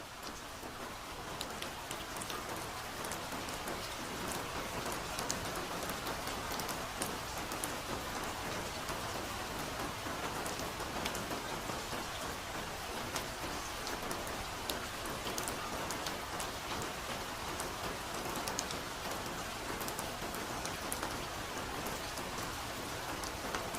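Soft steady rain falling, with many separate drops ticking sharply over the hiss of the downpour; it grows louder over the first few seconds, then holds even.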